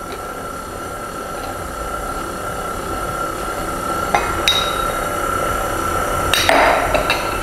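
KitchenAid stand mixer running with a steady motor whine, its wire whisk beating sponge-cake batter in a glass bowl as milk and oil are poured in, gradually getting a little louder. A glass pouring bowl clinks against the mixer bowl's rim about four seconds in, and there is a short clatter with clinks near the end.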